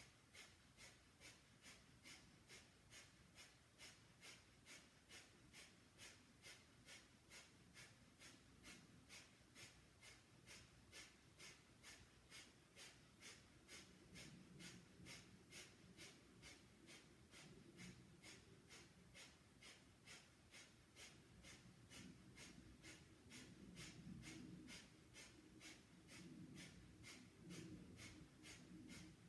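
Breath of Fire: faint, rapid, evenly paced forceful exhalations through the nose, about two to three a second, kept up without a break.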